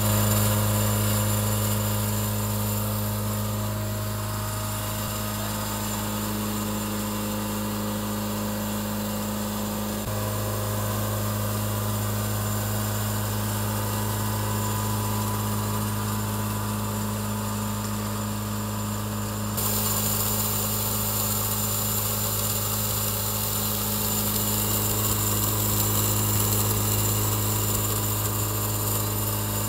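Electric-motor-driven twin-lobe Roots blower of a bulker unloading system running steadily, with a strong low hum and a hiss of moving air above it. The hiss grows louder about two-thirds of the way through.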